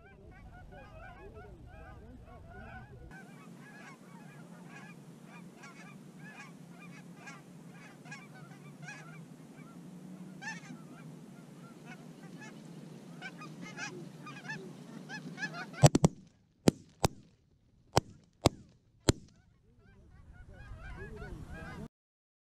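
A flock of Canada geese honking, many short calls overlapping. About two thirds of the way through, a volley of about seven shotgun blasts in some three seconds, the loudest sounds here, followed by more honking before the sound cuts off.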